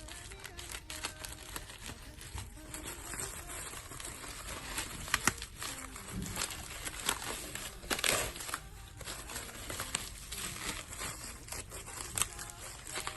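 Album packaging and paper being handled: rustling and crinkling with scattered small clicks, and one louder rustle about eight seconds in.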